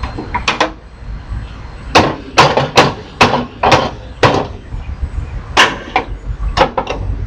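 Hammer blows on a scrap microwave's parts as it is knocked apart for its metal: a couple of sharp strikes near the start, then about a dozen more, spaced unevenly.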